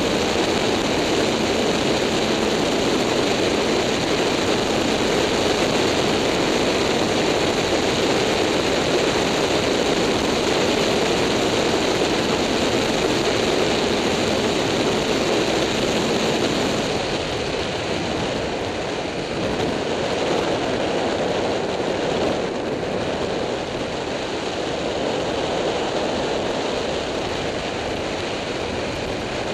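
Steady wind rush on the on-board microphone of a Yamaha FZ6-R motorcycle riding at road speed, with its engine running underneath. The rush eases a little about two-thirds of the way through.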